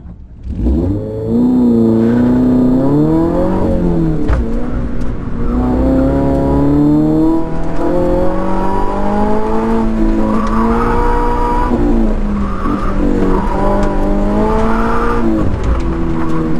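2022 Subaru BRZ's 2.4-litre flat-four engine at full throttle, heard from inside the cabin: it launches about half a second in and the revs climb, fall sharply about four seconds in, then rise and fall over and over as the throttle is worked.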